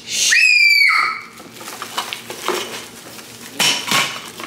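A young child's high-pitched squeal: one shrill shriek of under a second, dropping in pitch as it ends. Faint handling clicks follow, then a loud brief hissing rustle near the end.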